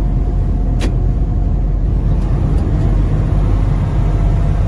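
Semi truck's engine and road noise droning steadily in the cab while cruising at highway speed, with a faint click about a second in.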